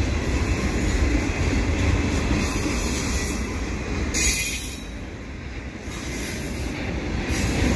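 Freight train of autorack cars rolling past close by, a steady rumble of steel wheels on the rails. Twice, about two and a half and four and a half seconds in, there is a brief high wheel squeal.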